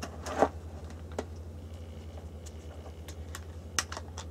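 Scattered clicks and knocks of a rifle and gear being handled on a wooden shooting bench, the loudest a knock about half a second in. A low steady hum runs underneath.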